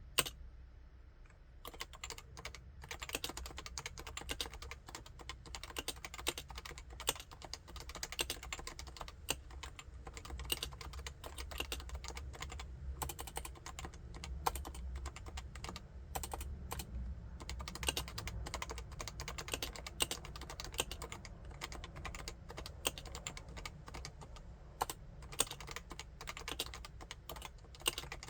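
Continuous fast typing on a Topre Realforce 87UW keyboard with Topre electrostatic capacitive switches, many quick keystrokes a second. It picks up after a short lull about a second and a half in.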